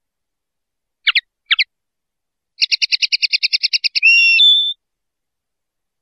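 Common linnet singing: two short sweeping notes, then a rapid trill of about ten notes a second, ending in a longer drawn-out note.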